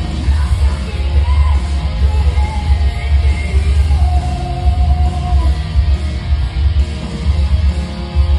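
Loud rock music with a singer over a heavy, steady bass beat; the singer holds one long note about four seconds in.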